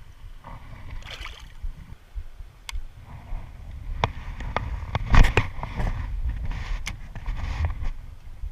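Water splashing and sloshing over a low rumble, with several sharp clicks and knocks about four to seven seconds in.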